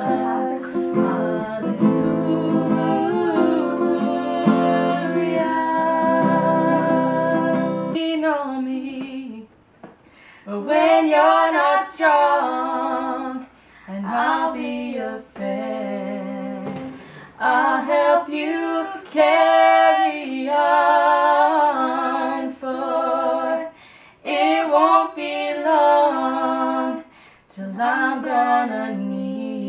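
Two young women singing a song together, at first over a plucked acoustic-guitar accompaniment that stops about eight seconds in, after which they carry on singing unaccompanied in phrases with short breaths between.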